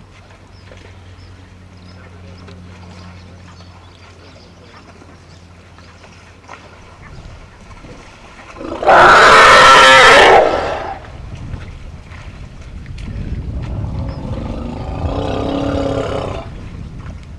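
Zebra calling twice. The first call, about nine seconds in, is a very loud, high barking bray lasting about a second and a half. The second, from about thirteen to sixteen seconds, is lower and quieter.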